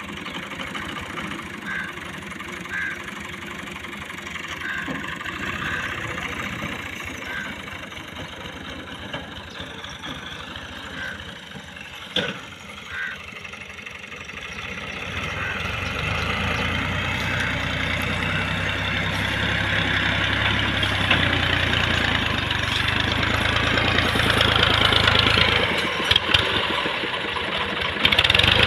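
Al-Ghazi 65 hp tractor's diesel engine running as it pulls a tined cultivator through a field. It grows steadily louder about halfway through, with a deep low drone.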